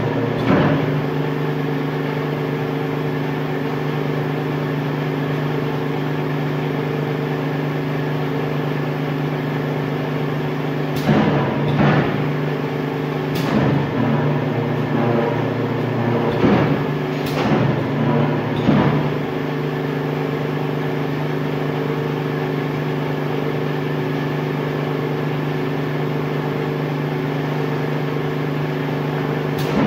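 hiw BBT ERL 80 S 80-tonne single-column eccentric press running with a steady hum from its motor and flywheel. From about eleven seconds in, for roughly eight seconds, it makes several strokes, each a sharp clunk of the pneumatic clutch engaging, with the hum wavering around them.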